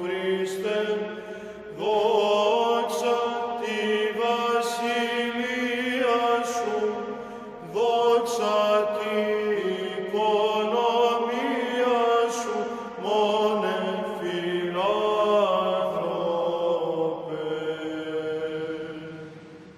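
Byzantine chant: a sung Orthodox hymn melody over a steady held low drone (ison), fading out near the end.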